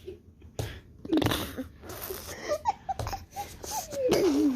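A young child making fart sounds with the mouth in several short sputtering bursts, mixed with laughing and giggling. Near the end a long vocal sound slides down in pitch.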